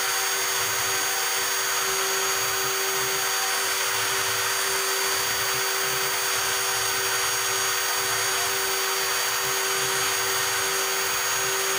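Stepcraft M1000 CNC router running with its spindle at a steady, high whine while cutting with an engraving bit. An uneven low hum runs beneath it.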